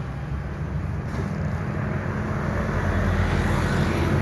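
Airbus A320 jet engines at takeoff power, a steady low rumble that grows slowly louder.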